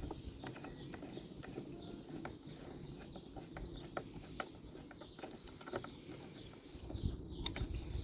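Faint scattered clicks and small metallic taps of a hand tool tightening the Torx screws that hold a leaf blower's exhaust heat shield.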